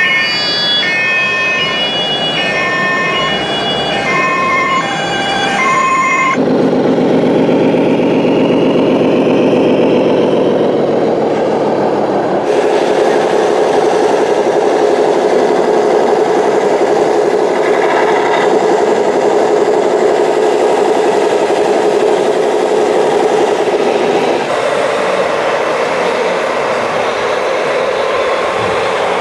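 A scale RC police car's siren, stepping back and forth between tones, for about the first six seconds. Then the sound cuts to RC trucks running: a dense engine-like drone, and from about halfway a steadier drone with a held whine.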